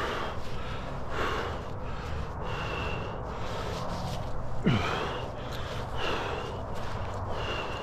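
A person breathing heavily close to the microphone, in repeated gasping breaths with short high whistling notes, and one brief falling vocal sigh a little past the middle.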